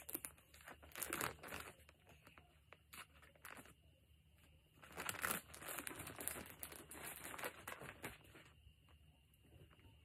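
Plastic courier pouch and the plastic wrapping inside crinkling and rustling in irregular bursts as they are handled and pulled open. The rustling gets quieter near the end.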